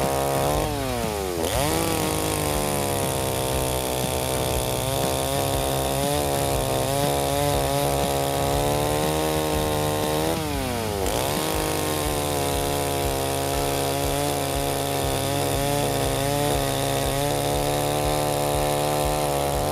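Stihl two-stroke chainsaw running at full throttle under load, cutting through a log on a freshly sharpened chain. Its revs drop and pick back up twice, about a second in and again about ten seconds in. The sharp chain lets the saw cut quickly on its own weight.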